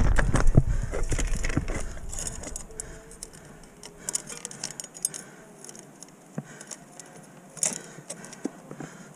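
Mountain bike chain clinking and rattling in light, scattered metallic clicks as the dropped chain is worked back onto the chainring. The chainring is bent from a rock strike, which keeps throwing the chain. Wind and rolling noise die away over the first couple of seconds.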